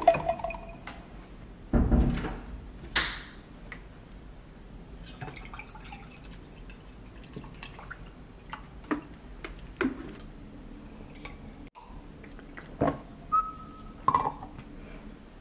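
Water poured from a plastic bottle into a glass mug, trickling for a few seconds, with knocks and clinks of bottle and glass. Near the end, a woven rattan coaster is set down on the mug as a lid.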